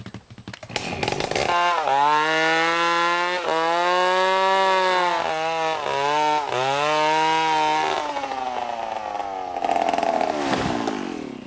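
Two-stroke chainsaw running at high revs as it cuts into a tree log; the engine note dips several times as the chain bites into the wood under load. For the last few seconds the sound turns rougher and less even.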